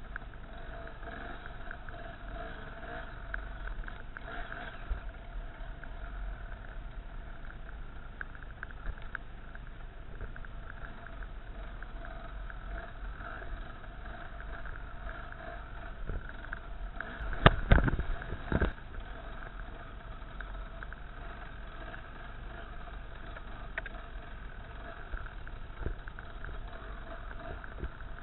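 Off-road trail motorcycle engine running steadily as the bike rides a rough forest track. About two-thirds of the way through, a quick cluster of loud knocks and clatter from the bike hitting bumps.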